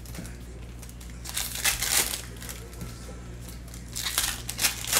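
Trading-card pack wrappers crinkling and tearing as packs are ripped open and cards pulled out, in two bursts of handling, about a second and a half in and again near the end.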